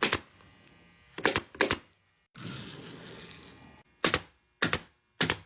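Pneumatic upholstery staple gun firing single staples into a boat seat cover, seven sharp shots at irregular spacing, three of them close together about a second in. A rustling noise of about a second sits between the shots.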